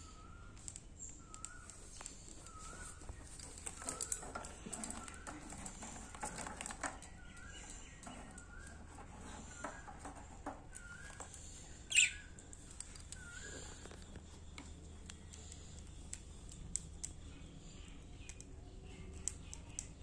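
Pet budgerigars chirping: a short wavy chirp repeated about once a second through the first dozen seconds, with one sharp, loud squeak about twelve seconds in and scattered faint clicks.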